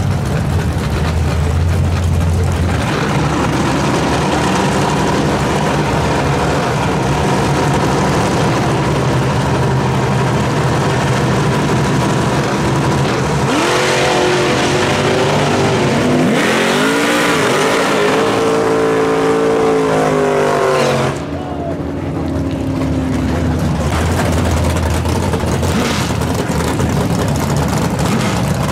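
Drag race car engines running at the starting line with a steady, loud rumble; about halfway through, a car launches at full throttle, its engine pitch climbing in steps through the gears until it lifts off about eight seconds later. The loud engine rumble then carries on.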